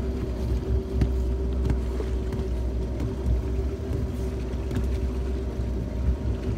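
Motorboat engine running steadily, a constant low hum with a steady droning tone, and a few light knocks.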